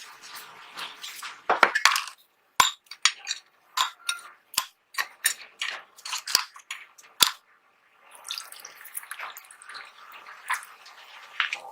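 Small metal parts clinking and clicking sharply against each other and a hard surface, a dozen or so separate knocks, then a few seconds of swishing noise.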